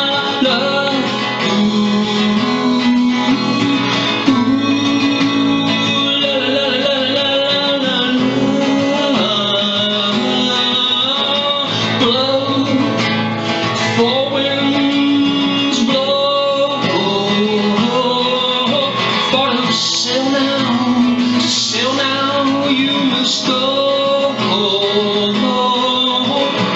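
A man singing a folk song with strummed acoustic guitar accompaniment.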